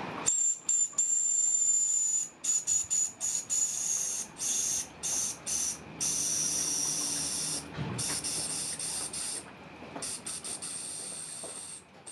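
Steam hissing from a Mamod model steam tractor in irregular stop-start spurts, a thin high whistling tone running through the hiss, as its controls are worked by hand with the boiler under steam.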